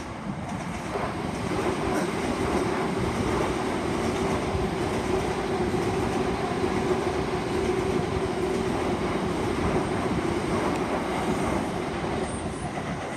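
Southern class 377 Electrostar electric multiple unit passing through the station: the rush and rumble of its wheels on the rails swells over the first couple of seconds, holds steady with a low hum running under it, then eases off near the end.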